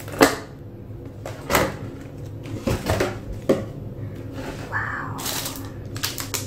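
A cardboard takeaway food box being opened and its contents handled: several sharp taps and knocks about a second apart, then a quicker run of clicks and rustling, as of plastic-wrapped cutlery and foam containers, near the end.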